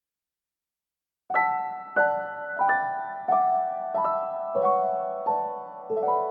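Background piano music: after about a second of silence, a slow melody of single struck notes, roughly one every two-thirds of a second, each ringing on and fading.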